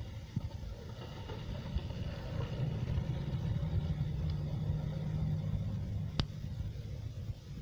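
A Ford Super Duty hi-rail pickup rolling along the rails past the listener on its rail guide wheels, a low steady rumble that is loudest midway and then eases as it moves away. A single sharp click sounds about six seconds in.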